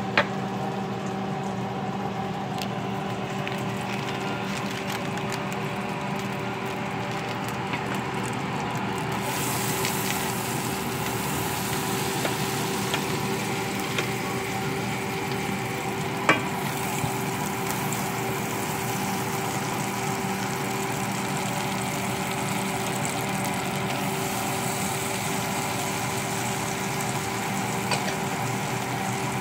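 Butter sizzling softly as it melts in a saucepan on an electric stove, over a steady background hum. A brighter hiss comes in about a third of the way through, and there are a few sharp clicks, the loudest a little past halfway.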